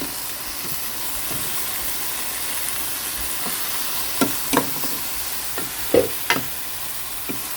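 Chicken sizzling as it fries in a pot with sautéed onions, garlic and ginger, a steady hiss. A handful of sharp knocks a little past the middle, as a utensil strikes the pot while stirring.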